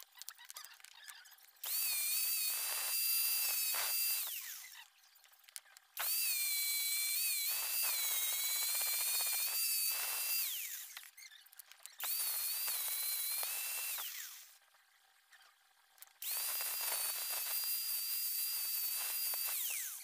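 Small electric drill running in four bursts of a few seconds each, its high whine dipping in pitch now and then and falling away as each run stops.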